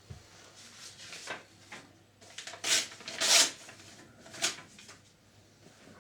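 Short rubbing and scraping sounds from cleaning the video head drum of a Panasonic NV-G7 VCR by hand, the loudest two a little under halfway through and a shorter one soon after.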